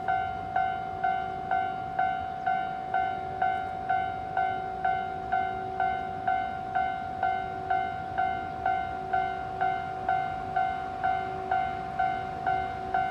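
Japanese level-crossing warning bell ringing steadily, about two strikes a second, with a fainter lower tone coming and going beneath it.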